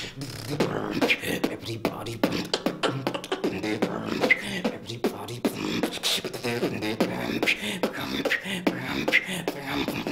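Solo beatboxing: a fast, dense vocal beat of mouth-made kicks, snares and clicks, with hummed and sung pitched tones woven in.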